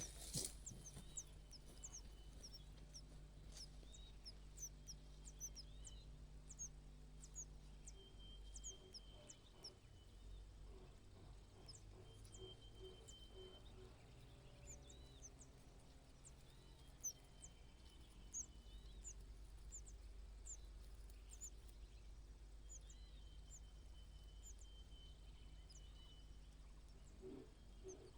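Faint high-pitched bird chirps: many short calls repeated throughout, with occasional longer thin whistled notes, over a low steady hum.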